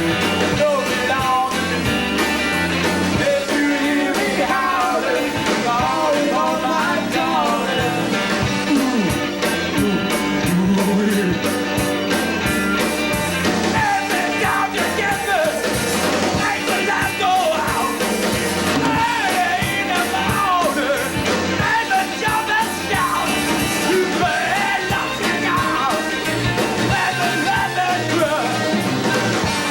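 Live rock band playing, with a singer's vocals over the band.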